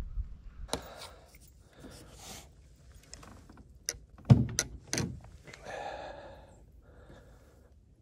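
Knocks, clicks and rattles of a freshly caught white bass being handled and unhooked from its lure in a kayak, the loudest a thump about halfway through.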